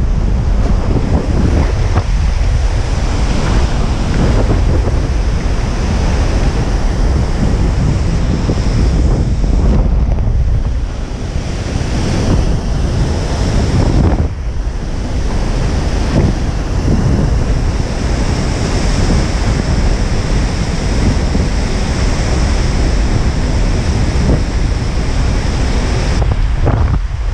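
Strong wind buffeting the microphone over the rumble of heavy surf breaking, steady throughout with a couple of brief lulls.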